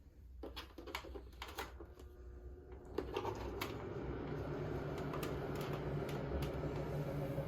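Scattered light clicks and knocks, then about three seconds in a small electric motor starts and runs with a steady hum.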